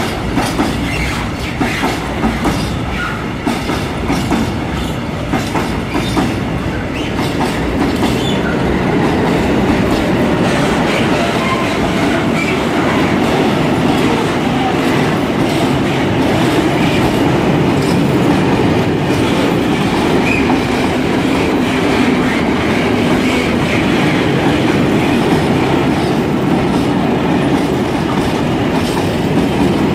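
Freight wagons of a passing freight train rolling by close: wheels clicking over the rail joints over a steady rumble. The clicks stand out in the first several seconds, and the rumble grows louder about eight seconds in and holds steady.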